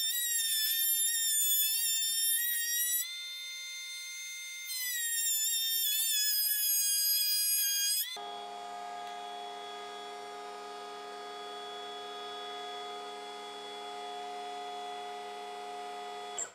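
Makita cordless electric planer, mounted upside down as a benchtop jointer, running as boards are fed across its cutter. A high whine whose pitch dips and wavers under the cut changes abruptly about halfway through to a lower, steady hum that stops suddenly at the end.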